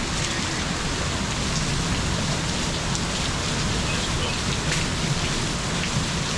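Heavy rain falling steadily: a dense, even hiss with faint scattered drop taps.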